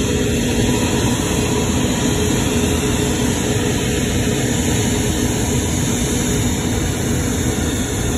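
Airbus A380 jet engines running at taxi power as the four-engined airliner rolls past close by: a loud, steady noise with faint steady low tones underneath.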